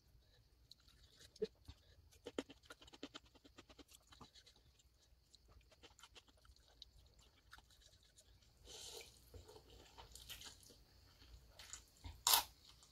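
Eating sounds of instant noodles with raw vegetables: quiet chewing clicks throughout, and a loud crunchy bite into a raw green vegetable near the end.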